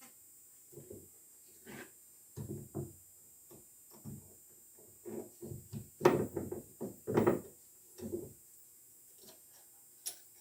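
Hand work at a metal lathe: a string of irregular knocks and clunks of metal parts and tools being handled and set in place, the loudest two about six and seven seconds in.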